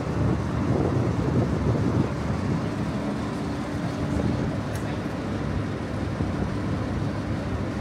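Passenger ferry's engine running, a steady low drone, with a faint hum of higher tones from about two and a half to five seconds in.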